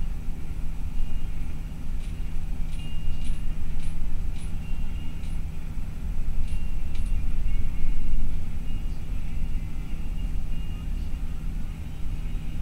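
Steady engine and road rumble heard from inside a bus cruising at highway speed, with a low hum running through it. From about two seconds in, a scatter of short, sharp clicks sounds for several seconds.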